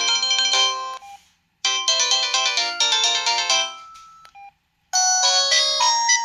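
Samsung T209 phone playing its preloaded polyphonic ringtones. One tune cuts off about a second in. A short chiming tune plays from about a second and a half and fades out near four seconds, and another tune starts near five seconds.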